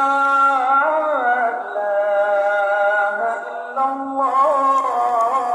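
Background vocal music: a voice singing a slow chant with long held notes and wavering ornaments, with a short break about three and a half seconds in.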